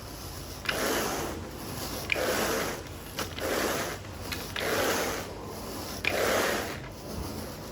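Carpet rake dragged through carpet pile in five steady, rasping strokes about every second and a half, each stroke starting with a short click.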